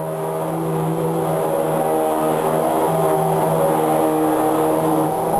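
Vacuum cleaner motor running with a steady droning hum over a rushing hiss, growing louder over the first second or so as it spins up, then holding steady.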